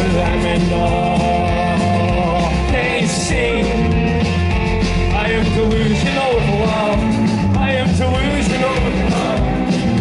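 Live indie rock band playing loud and steady: drums, electric and acoustic guitars, with a voice singing over them.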